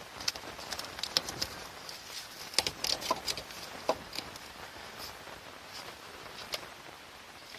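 Scattered light clicks and taps over a faint steady hiss, with one or two short chirp-like squeaks.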